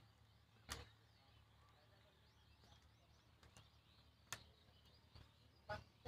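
Quiet open-air farm ambience with faint bird chirps, broken by two sharp clicks, one near the start and one past the middle, and a short pitched call just before the end.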